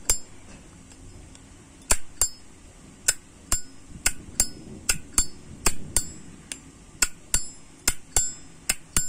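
2019 Zippo windproof lighter's hinged lid flicked open and snapped shut over and over, about eighteen sharp metallic clicks after a short pause near the start, many with a bright bell-like ring. That clear 'bell tone' (âm chuông) is the lid sound collectors prize in a Zippo.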